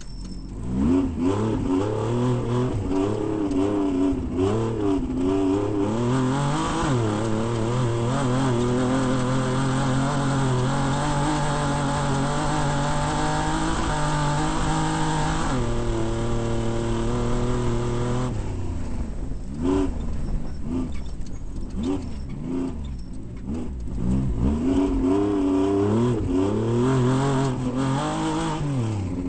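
Desert off-road race vehicle's engine under hard driving, revs rising and falling as it accelerates and lifts. Midway it holds steady high revs for several seconds, drops to a lower steady note, then eases off and goes back to rising and falling revs.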